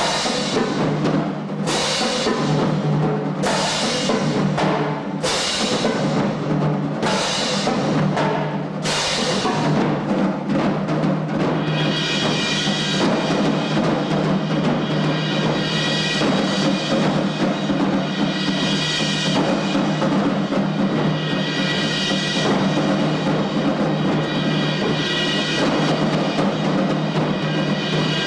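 Drum and brass marching band playing a piece: heavy accented percussion hits about once a second for the first nine seconds, then held brass chords over the drums from about twelve seconds in.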